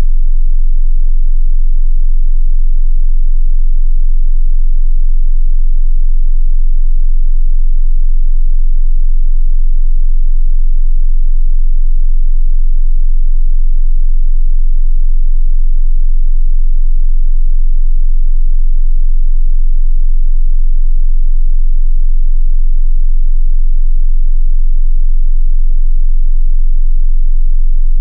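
Continuous 22 Hz sine-wave test tone, a single steady, very deep bass hum at high level with no change in pitch or loudness.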